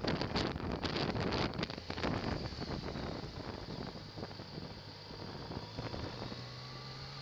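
Wind buffeting the microphone of a camera mounted on a moving motorcycle, with the engine running underneath. The gusty buffeting is loudest in the first couple of seconds, then eases, and a steady low engine hum comes through near the end.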